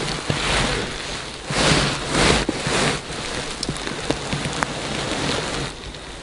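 Crackling rustle of clothing and hands moving right next to a body-worn camera's microphone, in several bursts of about half a second, over a low wind rumble; it drops away near the end.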